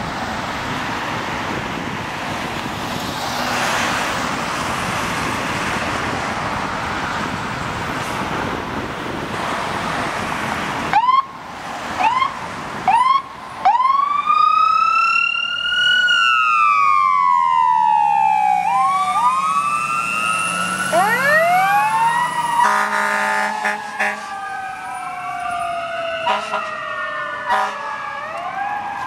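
Fire engine's Q siren: a few short rising chirps about eleven seconds in, then long slow wails that rise and fall. Blasts of its air horns join in near the end. Before the siren starts there is a steady hiss of wind and traffic.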